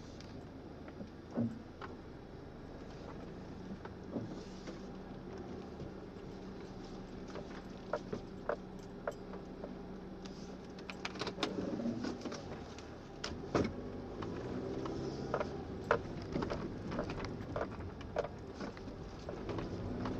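Car engine and road noise heard from inside the cabin while driving, with scattered irregular clicks and knocks that come more often in the second half.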